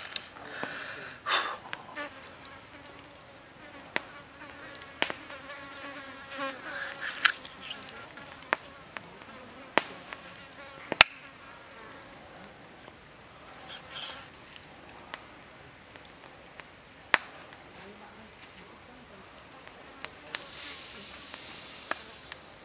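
A kitchen knife cutting raw squid on a wooden stump chopping block, with about a dozen sharp knocks at irregular intervals as the blade strikes the wood. Insects buzz in the background, with a louder buzzing about five to seven seconds in.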